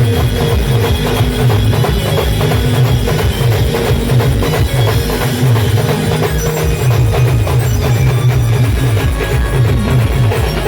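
Band music driven by loud drums playing a fast, even beat, with a few held instrument tones over it.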